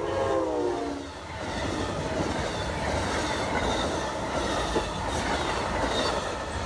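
Amtrak P42 Genesis locomotive's horn chord dropping in pitch as it passes at speed, fading out about a second in. Then the steady rushing rumble of its passenger cars going by on the rails.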